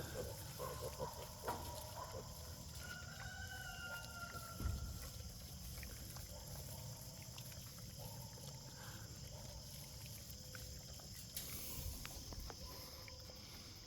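A rooster crowing faintly: one long held call a few seconds in. Before it come a few short pig grunts.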